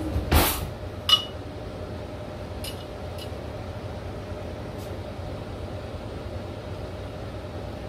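Kitchen utensil handling: a short clatter just after the start, then a sharp clink of a metal spoon with a brief ring about a second in, and a few faint ticks, over a steady low hum.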